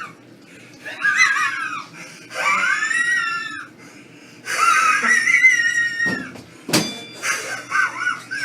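A person's wheezing laughter: high, wavering squeals in several bouts, broken by short gasping pauses, with a sharp click about two-thirds of the way through.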